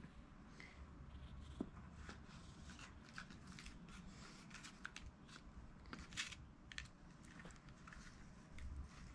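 Faint, scattered rustling and crinkling clicks of a handmade cat mask being handled and fitted over a cat's head.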